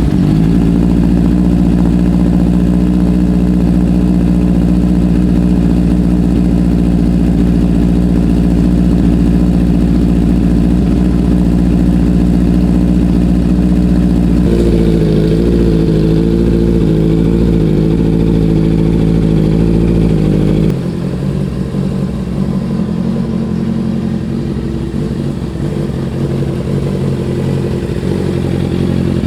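Honda CBR650R inline-four engine idling steadily through a gutted, modified exhaust. The tone changes about halfway through, and the sound gets a little quieter about two-thirds of the way in.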